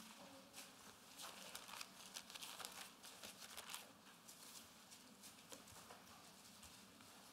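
Faint rustling and crinkling of thin Bible pages being leafed through, a quick run of soft crackles mostly in the first four seconds.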